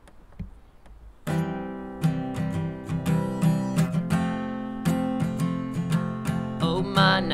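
Acoustic guitar strummed in repeated chords, starting sharply about a second in after a brief quiet.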